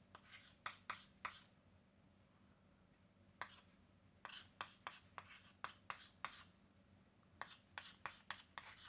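Chalk writing on a chalkboard, faint: quick taps and scratches of the chalk in short clusters as letters are formed, with a pause of about two seconds after the first second. A faint steady low hum lies underneath.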